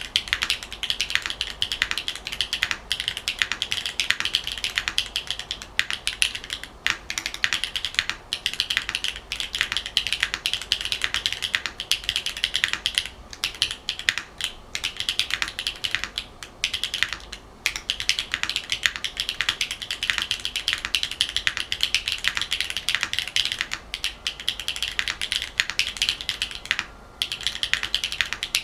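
Fast, continuous typing on a Neo80 Cu custom mechanical keyboard with HMX Retro J tactile switches, GMK keycaps, an aluminium plate and a brass bottom: dense, rapid keystroke clacks with a few short pauses.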